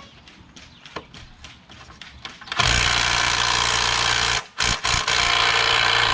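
Cordless impact wrench hammering on a rusted, seized engine mounting bolt through a socket, and the bolt does not budge. A few light clicks as the socket is fitted, then the tool runs about two and a half seconds in, stops briefly with two short blips, and starts again.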